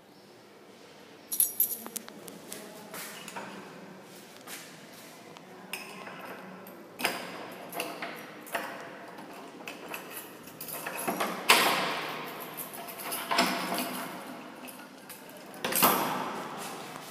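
A key being worked in a steel padlock hanging on a door's brass bolt latch: keys jangling and metal clicking and rattling in irregular bursts, louder in the second half.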